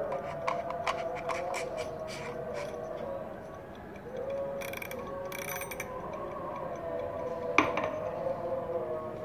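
Clockwork rotating time-lapse timer being turned by hand, its mechanism clicking about three times a second for the first few seconds. Then comes rubbing from handling and one sharp knock near the end. A steady, wavering drone sits underneath throughout.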